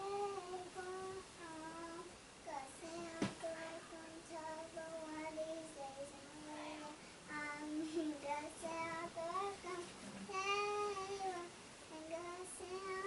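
A young girl singing a song alone, without accompaniment, in short sung phrases. A single brief knock sounds about three seconds in.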